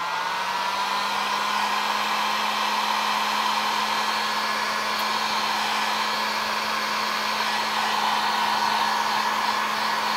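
Electric heat gun running steadily, its fan motor just up to speed at the start, with a steady hum and a rush of hot air. It is shrinking heat-shrink tubing over a spliced wire joint.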